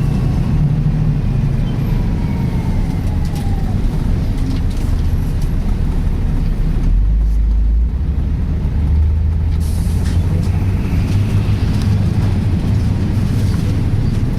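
Volvo B10BLE single-decker bus heard on board while moving: the diesel engine runs with a steady low hum whose note shifts about seven seconds in, and over it a loud whining "sweeping" noise, a serious fault that the uploader ties to the Voith gearbox.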